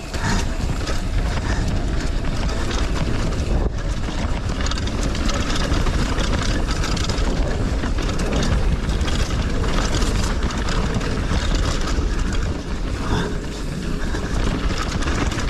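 Wind rushing over an action camera's microphone as a Dartmoor Hornet hardtail mountain bike rides down a dirt trail, with steady tyre noise and many quick knocks and rattles from the bike over bumps.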